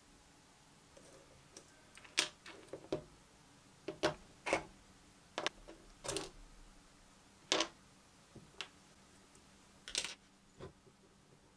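Small metal parts of a miniature model engine and its supercharger clicking and knocking as they are handled, unscrewed and set down on a cutting mat: irregular sharp taps with quiet gaps between them.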